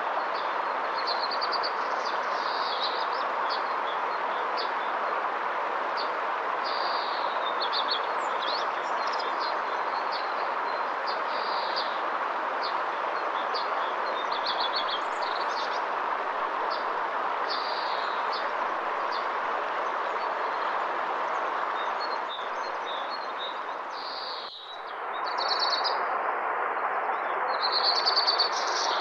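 A river flowing steadily, with small birds chirping and trilling over it throughout. About 24 seconds in, the water sound dips for a moment, then comes back.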